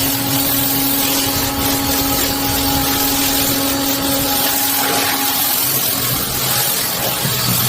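A motor running steadily under a strong hiss, with a steady hum that stops about five and a half seconds in.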